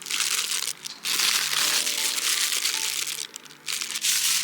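Loud crinkling and rustling noise that stops and starts, with background music playing under it.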